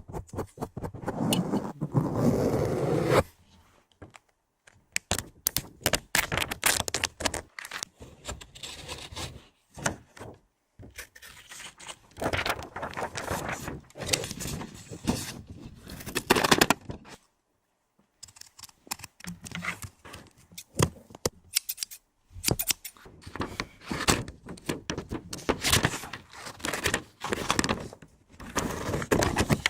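Close-miked ASMR trigger sounds: fast, irregular tapping, scratching and scraping on and around the microphone, with a rustling stretch at the start and a few short pauses. It is chaotic enough to sound like plain noise.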